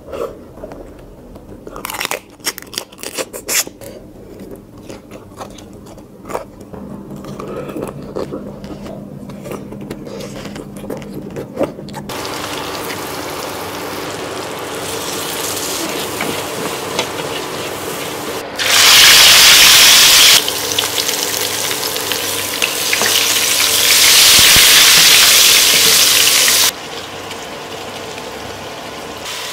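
Close-up eating sounds for the first dozen seconds: biting and chewing, with scattered clicks and smacks. Then a steady sizzle of masala and then fish frying in hot oil in a pan, rising to two much louder spells of sizzling near the middle and towards the end.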